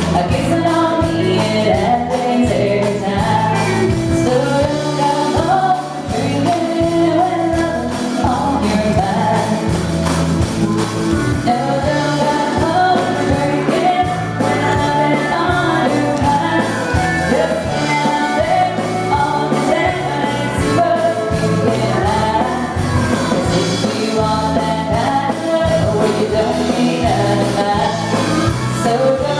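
Live country band playing a song, with a woman singing lead through a microphone over electric bass and drums keeping a steady beat.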